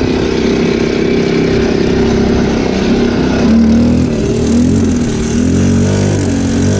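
Linhai 300cc 2x4 ATV's single-cylinder four-stroke engine running as the quad rides along a rough dirt track, steady at first, then its pitch rising and falling repeatedly from about halfway through as the throttle varies.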